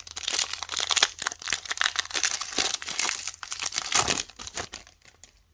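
Plastic wrapper of a 2021-22 NBA Hoops trading card pack being torn open and crinkled by hand, a dense crackle that stops near the end.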